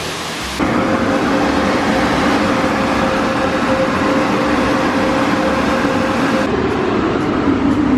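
Steady loud rushing noise with a steady hum, heard from inside a car. It starts abruptly about half a second in and turns duller near the end.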